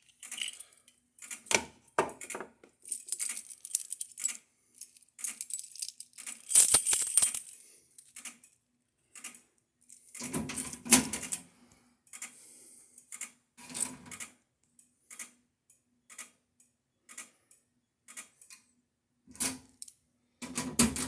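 Irregular clicks, taps and small rattles from handling an aerosol can of canned test smoke that is being shaken and moved about, with a louder, longer rustling burst about seven seconds in.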